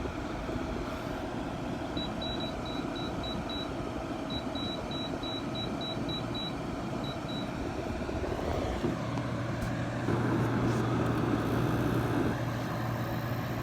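Zenith (LG-built) 6,500 BTU window air conditioner with its fan running steadily. From about two seconds in, its control panel gives a run of short high beeps. About nine seconds in, the compressor kicks on with a steady low hum, a sign that the compressor works even though the unit has lost its Freon.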